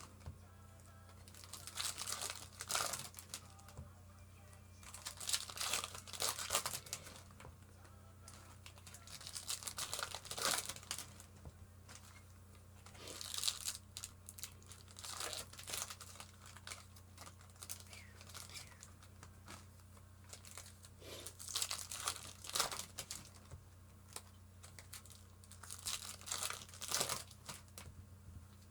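Topps Chrome Football card packs being torn open, their foil wrappers crinkling and ripping in repeated bursts a second or a few seconds apart, over a steady low hum.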